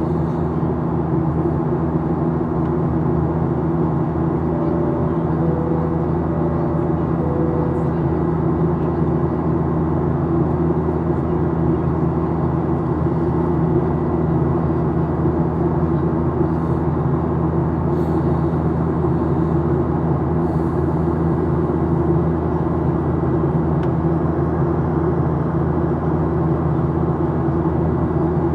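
Steady cabin drone of a Boeing 737-800 in flight, heard from a forward window seat: airflow noise with a low hum from its CFM56-7B engines. About five seconds in, a faint high-low chime sounds twice.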